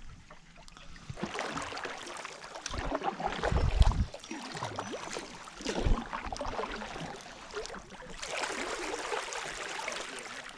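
Kayak paddle strokes through calm river water: the blades dipping and pulling, with uneven splashing and dripping. A dull thump about three and a half seconds in, the loudest sound, and another around six seconds.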